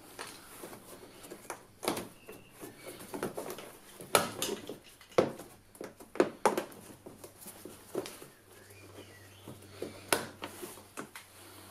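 Gloved hands working up inside the plastic underbody flap of a car, with scattered, irregular clicks and knocks of hard plastic and metal parts being handled.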